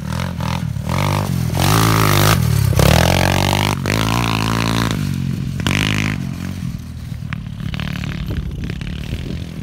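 A 125cc pit bike's single-cylinder four-stroke engine revving through its newly fitted aftermarket muffler as the bike accelerates away across grass. The engine note climbs in pitch, drops back and climbs again, then grows fainter as the bike moves off.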